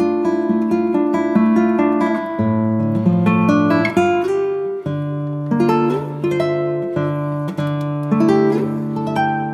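Background music: a tune of plucked notes and chords that fade after each is struck, changing every second or two.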